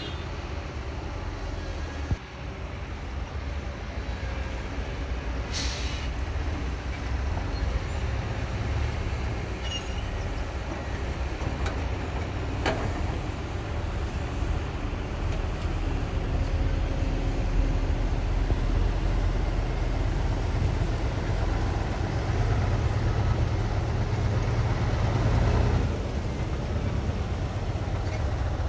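Heavy diesel engine running steadily with a low rumble that grows somewhat louder partway through. A short hiss comes about six seconds in.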